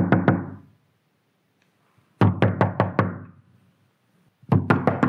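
Knocking on a door in quick bursts of several raps, a new burst about every two seconds, the last burst the longest.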